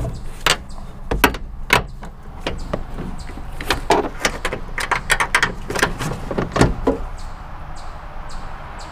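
Click-type torque wrench ratcheting in short strokes as a rear strut upper mount nut is tightened, the wrench set for 40: a long run of sharp, uneven clicks that thins out after about seven seconds.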